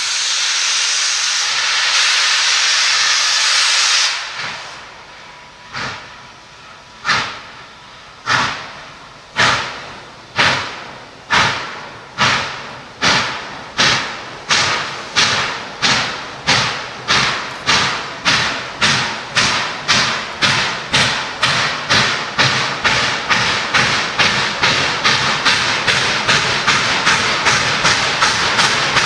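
Norfolk & Western Class J No. 611 steam locomotive starting away: a loud hiss of steam for the first few seconds, then exhaust chuffs that begin about a second apart and quicken steadily to two or three a second as the engine picks up speed.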